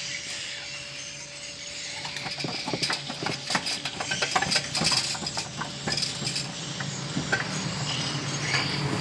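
Irregular metallic clicks and clinks of tools and parts being handled, busier from about two seconds in, over a low steady hum that grows louder near the end.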